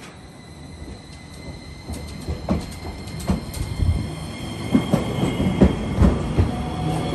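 Iyotetsu 5000 series low-floor tram pulling away and passing close by, getting louder as it nears. Its wheels knock irregularly over the rail joints, over a steady high whine.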